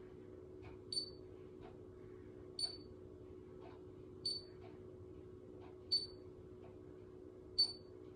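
Babyliss Lasting Waves heated hair styler beeping while clamped on a section of hair: a short, high electronic beep about every second and a half, five times, its timer counting the curl.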